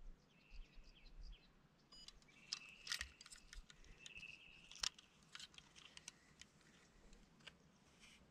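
Faint clicks and light rattles of a handheld fish scale's hook and clip as a bass is hung on it and lifted, the sharpest clicks about three and five seconds in. A few faint high steady tones, each under a second long, sound at intervals.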